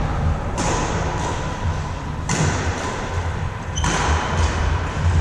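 Badminton rackets striking a shuttlecock back and forth in a rally: three sharp hits, about one and a half seconds apart, over a steady low rumble.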